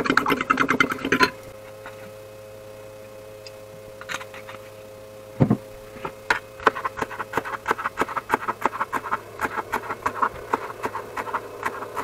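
A kitchen knife chopping fresh dill on a cutting board: rapid short knocks, several a second, from about halfway on, after a single thump. Before that a steady low hum, and in the first second a spoon beating eggs in a bowl under music that cuts off.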